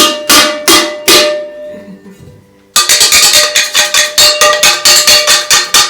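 Wooden spoon banging on a metal saucepan, ringing with each strike: four spaced hits, a short pause, then a fast drumming of about six or seven hits a second. Really loud.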